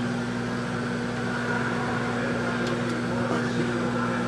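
Microwave oven running with a steady hum while heating a whole egg, with a couple of faint ticks about two-thirds of the way through.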